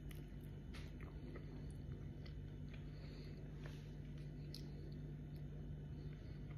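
Soft chewing and small mouth clicks of someone eating rice and fish by hand, over a steady low hum.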